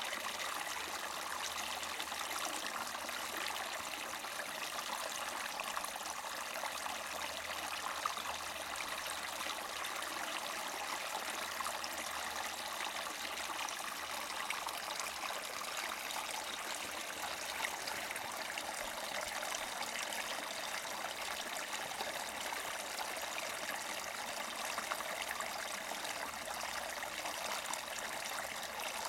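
Small spring-fed mountain brook gurgling and splashing over rocks, a steady rush of running water.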